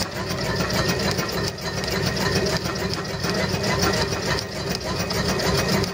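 Homemade Stirling engine running steadily and turning a car alternator by a belt, with a fast, even mechanical clatter. A light metallic knock is mixed in, which the builder puts down to metal-on-metal contact of the hot-side pistons rubbing inside their metal tubes.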